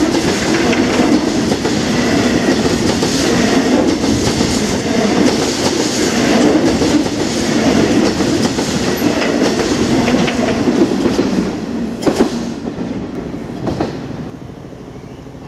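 Open box freight wagons rolling past close by, their wheels rumbling and clattering steadily over the rail joints. A couple of sharp knocks come near the end, and then the sound drops away.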